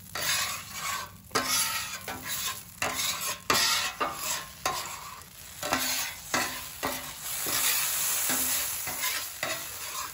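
Metal bench scraper sliding back and forth across a hot flat-top griddle in repeated strokes, each starting sharply, spreading cooking oil that sizzles under it.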